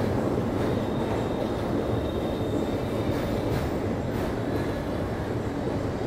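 Passenger train running steadily across a rail-cum-road bridge, heard from on board: an even rumble of wheels and coaches.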